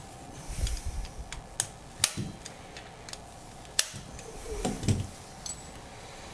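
Small metallic clicks and taps, about a dozen, as a screw on a steel e-beam emitter assembly is worked with a screwdriver and the parts are handled. The sharpest clicks come about two seconds in and just before four seconds, with duller knocks and rubbing around one second and five seconds in.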